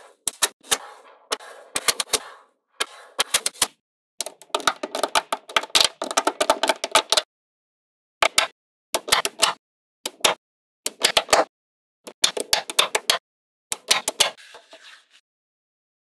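Small neodymium magnetic balls clicking and clattering as sheets of them are snapped onto each other, in clusters of sharp clicks with short silent gaps between, and a longer run of rattling clicks in the middle.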